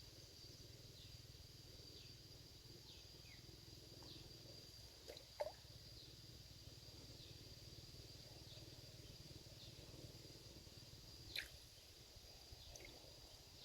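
Quiet outdoor ambience: a steady high-pitched insect drone with faint, short falling chirps about once a second, and a couple of soft clicks, one about five seconds in and one near eleven seconds.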